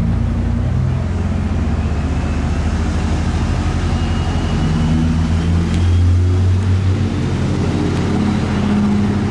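A large engine running close by, a steady low drone whose pitch shifts up and down a few times.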